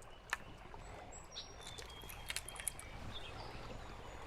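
Faint outdoor ambience with a few short, high bird chirps and scattered light clicks.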